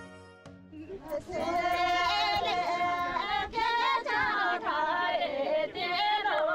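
A group of women singing together without instruments, starting about a second in.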